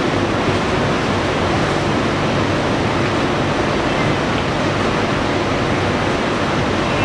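Steady street background noise: a constant even rushing sound with a faint low hum under it, unchanging throughout.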